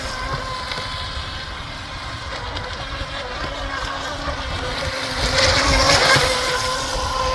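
Electric R/C boat (Pro Boat Stealthwake with a flex-shaft drive) running on the water: a steady motor whine over the hiss of the hull through the water, swelling louder about five seconds in and easing off near the end.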